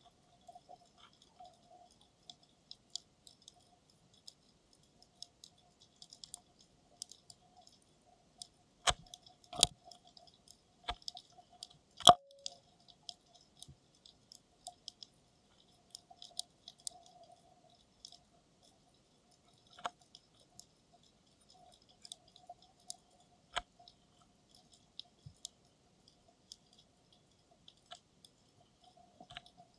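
Underwater sound picked up through a 360 camera's dive housing on the seabed: scattered sharp clicks and crackles, with a few much louder knocks about nine to twelve seconds in and again around twenty seconds in, over a faint steady hum.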